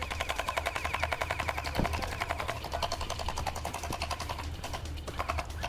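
A rapid, even mechanical rattle of about ten clicks a second that runs for roughly four seconds, then breaks into a few scattered clicks.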